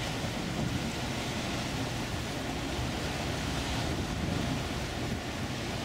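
Steady wind noise on the microphone over the rush of river water, recorded from a moving cruise ship.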